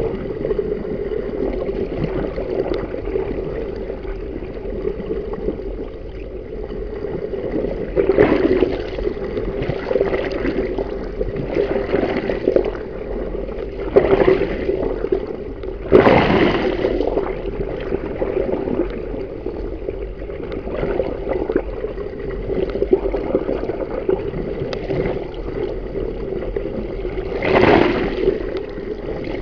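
Water rushing over a small underwater action camera held below the surface at a moving boat's bow: a steady churning hiss with a constant hum underneath, swelling into louder surges several times as the water hits the camera harder.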